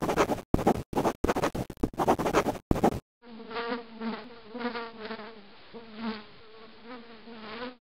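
Pencil scribbling on paper in quick, rough strokes for about three seconds. Then a low buzzing sets in that swells and fades about twice a second.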